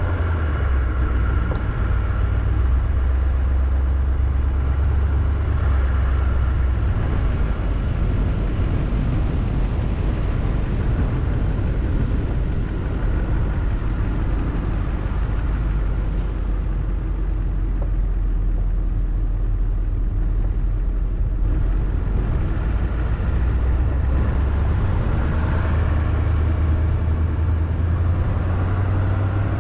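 A vehicle driving slowly along a paved road: a steady low engine and road rumble, whose pitch shifts a little several times.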